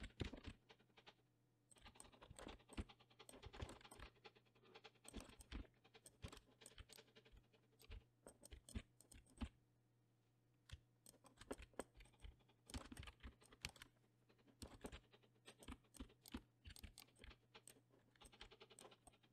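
Faint computer keyboard keystrokes and mouse clicks, short taps scattered irregularly, from shortcut presses while posing a 3D rig.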